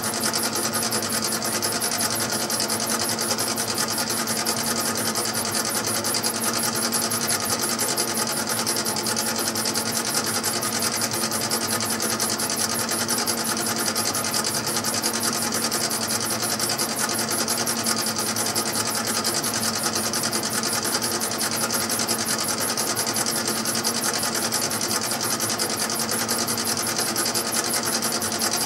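Mini lathe running steadily while a small-nose-radius carbide insert turns a delrin bar. The motor and gear drive make a constant whine with a fast, even buzz.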